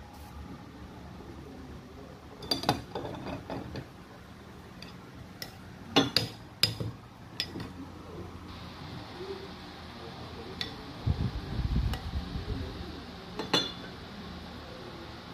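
A metal spoon clinking against ceramic bowls and plates in a few short clusters of clinks, while braised fish in coconut sauce is spooned out. There is a low thud around eleven seconds in.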